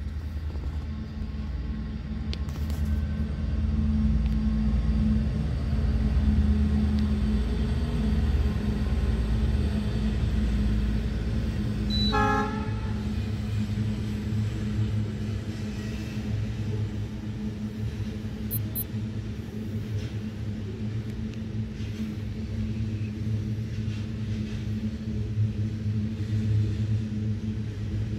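Freight train hauled by two diesel locomotives passing close by: a heavy diesel rumble and drone, loudest in the first part, then wagons rolling past with a steady rumble and occasional wheel clicks. A short horn toot about halfway through.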